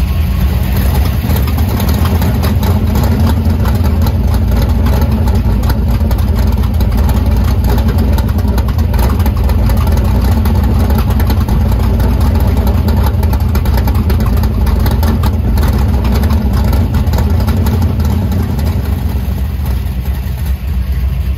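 1962 Chevrolet Biscayne drag car's 409 V8 running at a steady idle, loud through its exhaust with the electric cutout butterfly valve in the pipe.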